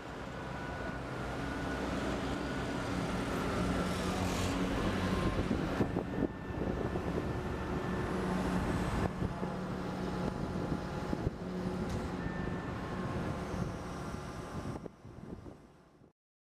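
Engines of heavy vehicles running steadily over traffic noise, with a few short knocks. The sound stops abruptly near the end.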